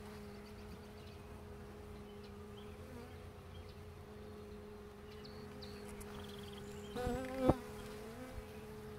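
Steady hum of a hive's honey bees swarming over an open brood frame. About seven seconds in a louder, higher buzz swells briefly and ends in a sharp click.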